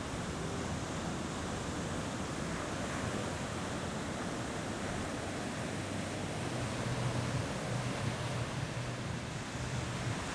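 Ocean surf: waves breaking and washing in a steady roar. A faint low hum joins about two-thirds of the way through.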